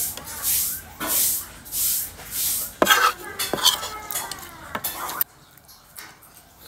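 Close-up chewing of food, a bite about every two-thirds of a second, then a metal spoon scraping and clinking against a plate for a couple of seconds from about three seconds in. The sound drops off suddenly near the end.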